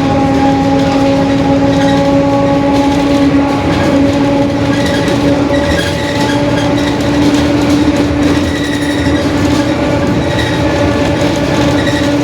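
Mercedes-Benz OF-1721 bus's rear differential whining, a steady tone with overtones over engine and road noise while the bus drives at an even speed.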